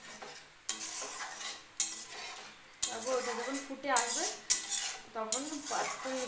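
A metal spatula stirs palak paneer gravy in an aluminium kadai, scraping and knocking against the pan's side about once a second.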